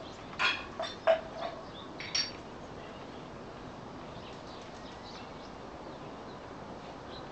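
A handful of short animal calls, about five in the first two and a half seconds, the loudest about a second in, over a steady background hiss.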